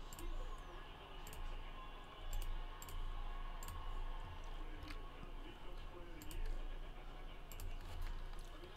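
Computer mouse clicking, about a dozen single sharp clicks at irregular intervals, over a low steady hum.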